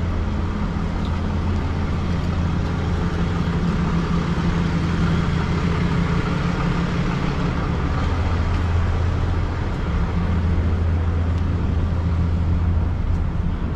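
Motor vehicle engine idling close by, a steady low hum over street traffic noise.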